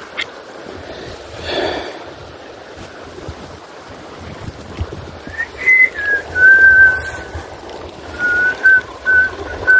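A person whistling a slow tune, several held notes that step down a little in pitch, starting about halfway in, over a steady rush of wind and water.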